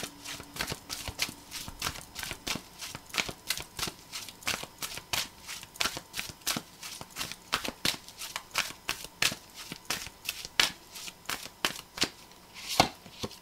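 A deck of cards being shuffled by hand: a quick, uneven run of light card slaps and taps, about four a second, that stops near the end.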